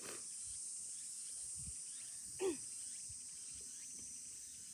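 Steady high-pitched chorus of summer insects, with one short call about halfway through whose pitch falls steeply.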